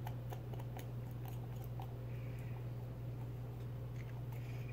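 Faint scattered light clicks and taps from a wooden brush handle working at the mouth of a small paint bottle, over a steady low hum.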